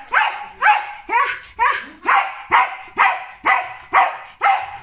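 Shetland sheepdog giving a steady run of short barks, about two a second, its complaining after being groomed.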